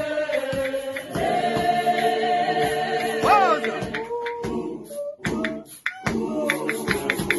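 A vocal group singing a cappella in close harmony, with one voice sliding upward about three seconds in. The sound thins to a few voices and clicks for a couple of seconds, then the full group comes back in about six seconds in.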